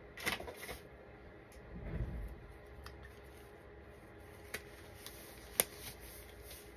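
Quiet handling noises from gloved hands at a work table: a brief rustle at the start, a low rumble about two seconds in, and a few sharp clicks, the loudest a little past five and a half seconds in.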